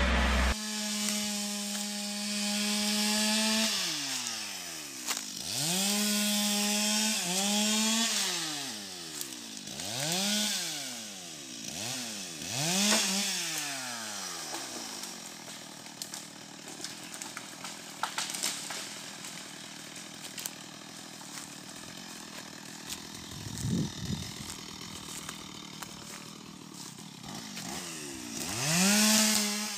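Stihl MS 250 two-stroke chainsaw revved up and down over and over in short surges. Through the middle it settles to a quieter, steadier running, then revs up again near the end.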